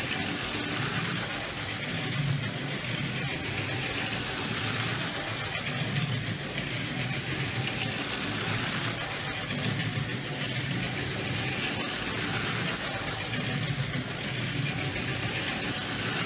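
LEGO Power Functions cargo train (set 60052), running on six Eneloop Pro NiMH AAA batteries: a steady whir of the train motor with wheels rumbling over plastic track. It swells and fades about every four seconds as the train laps the oval.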